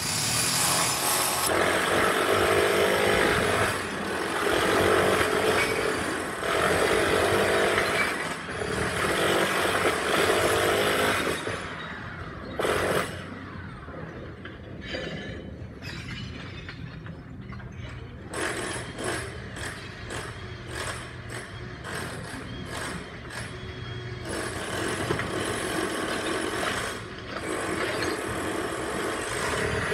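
Jackhammer breaking up a tiled concrete floor in runs of two to three seconds with brief pauses. Partway through the hammering stops, and loose tile pieces knock and clink in a quick series of sharp hits before louder breaking picks up again near the end.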